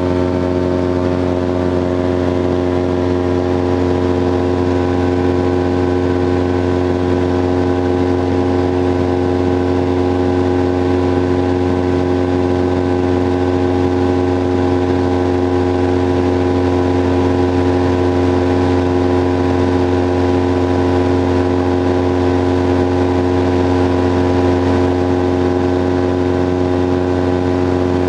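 Titan Tornado light aircraft's engine and propeller running steadily at cruise, heard from inside the open cockpit as an unchanging drone.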